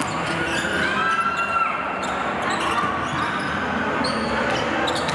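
Basketball being dribbled on a hardwood court, with sneakers squeaking on the floor over a steady murmur of voices in the hall.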